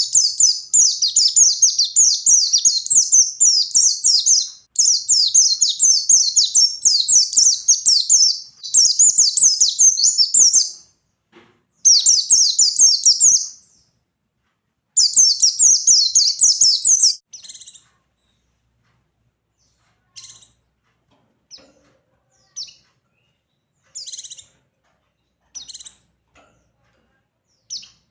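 White-eye (pleci) singing a fast, high twittering song in the full 'ngalas' style, in long unbroken runs with brief pauses. After about 17 seconds the song breaks off into short, separate calls spaced a second or two apart.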